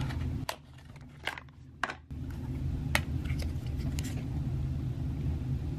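Light handling of a plastic powder compact and its cardboard box: a handful of short, sharp clicks and taps as the compact is taken out and opened. A low steady hum lies beneath.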